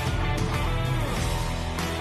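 Background music led by guitar over a steady bass and beat.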